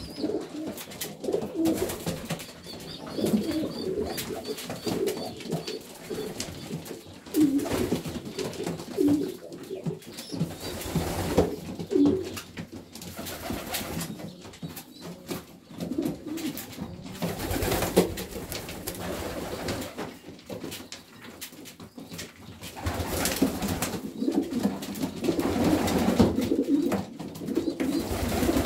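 Domestic pigeons cooing over and over in a small loft, the low calls overlapping from several birds, with scattered sharp taps among them.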